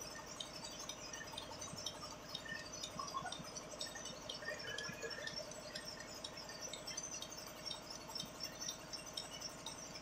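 Milking-machine pulsators clicking in a steady rhythm, several overlapping at about two to three ticks a second, over a steady hum while the machine milks the cows.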